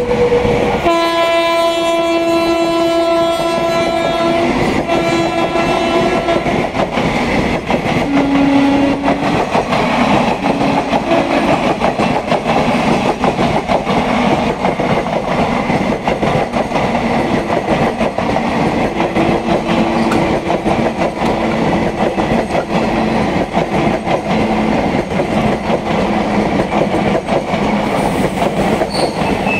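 Passenger coaches of an Indian Railways express rushing past at speed, wheels clattering steadily over the rail joints. A train horn sounds in two long blasts over the first six seconds, followed by shorter, lower blasts a few seconds later.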